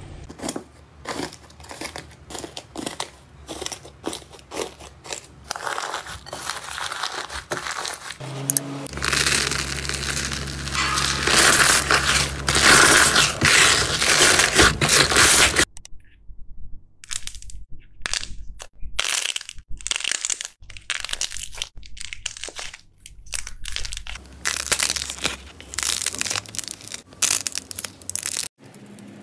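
Hands squeezing, pressing and kneading slime, making a run of short sticky clicks and pops. A louder, continuous crackle fills the middle, from about nine to sixteen seconds in.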